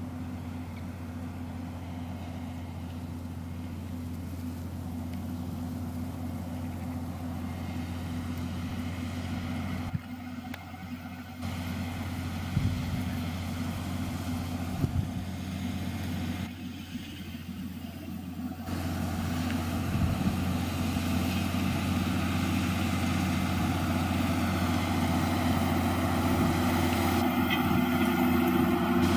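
John Deere 6210R tractor's six-cylinder diesel engine running steadily under load while pulling a six-furrow plough, growing louder toward the end, with a few brief knocks.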